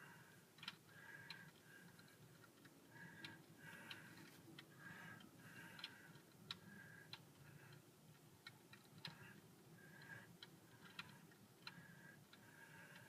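Near silence: faint room tone with scattered soft clicks at irregular intervals.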